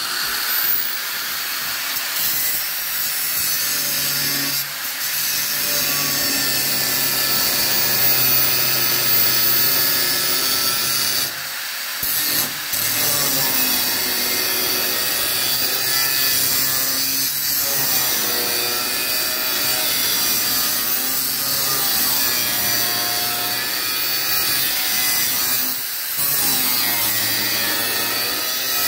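Small angle grinder with a small cutting disc cutting a curved line through sheet steel. It comes up to speed at the start, then runs steadily under load, easing off briefly a few times as the cut is worked around.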